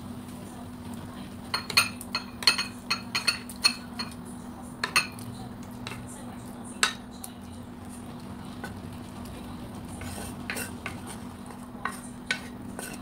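Serving utensil clinking and scraping against a cooking pan while food is scooped out into a ceramic bowl: a quick run of sharp clinks in the first few seconds, then scattered ones, over a steady low hum.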